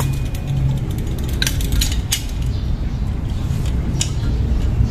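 Steel parts of a Honda Click 125i's CVT clutch assembly clinking as the clutch is fitted down over the center spring onto the driven pulley: a handful of sharp metal clinks over a steady low hum.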